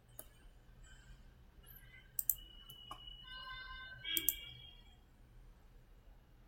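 Computer mouse clicks, a handful of short sharp clicks including two quick pairs near two and four seconds in, as settings are picked in a CAD dialog.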